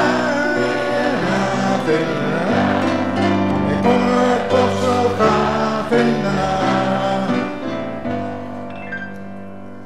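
Grand piano playing chords with singing over it in the first few seconds; a last chord then rings on and fades away from about eight seconds in.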